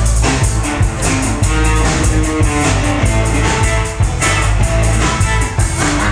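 A rock band playing live: electric guitars, bass guitar and a drum kit, with the drums keeping a steady beat.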